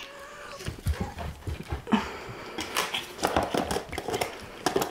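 A dog and a cat moving about at close range, with many irregular short taps and clicks.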